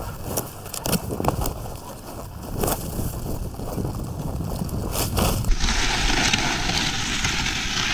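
Skis scraping and clattering over rough, uneven snow in irregular clicks. About five and a half seconds in, this gives way to a steady hiss as they glide over packed snow.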